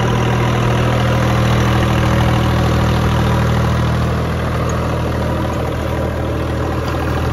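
Swaraj 855 tractor's three-cylinder diesel engine, its fuel pump tuned for extra horsepower, running at a steady speed. The sound eases slightly about four seconds in.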